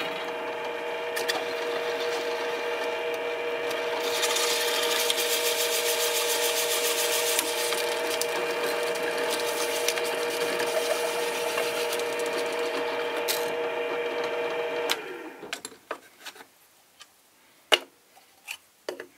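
Benchtop drill press motor running steadily while its bit drills into a plastic ping pong ball held in a 3D-printed jig, with a harsher scraping cutting noise from about four seconds in. About fifteen seconds in the motor is switched off and winds down, and a few sharp clicks follow as the jig is handled in the vise.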